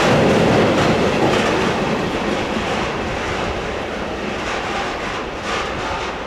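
Freight train of rail tank wagons rolling past, its wheels running on the rails, the sound fading as the train draws away.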